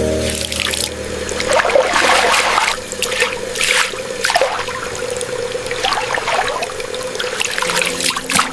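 Water running and splashing in a sink, trickling unevenly as something is rinsed under it.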